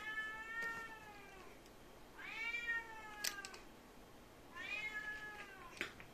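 A black-and-white cat meowing three times, each drawn-out meow lasting about a second and rising then falling in pitch.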